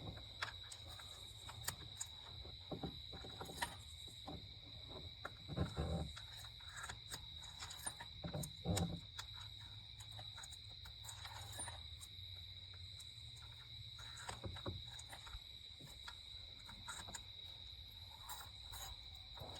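Faint, scattered clicks and knocks of a ratchet and socket working a spark plug loose and out of a 5.7 Hemi V8, with a few short runs of clicking. A steady high-pitched tone sits underneath throughout.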